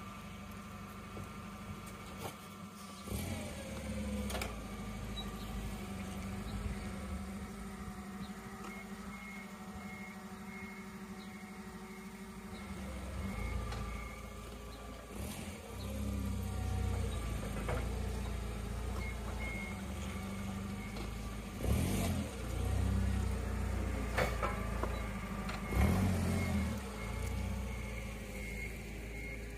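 An engine running steadily with a low rumble that grows louder about halfway through, with a few sharp knocks and clatters, three of them close together near the end.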